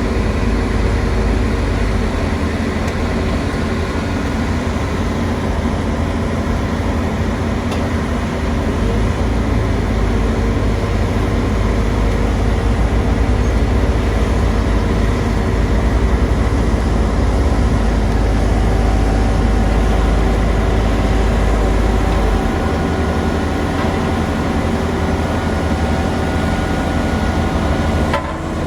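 Steady low rumble of a heavy engine running continuously, with several steady hum tones above it.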